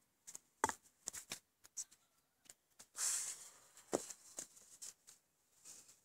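Faint movement noises: scattered scuffs, rustles and a few soft knocks, with a thump about a second in and another about four seconds in, as a person gets up, shifts about and sits back down on a wooden chair.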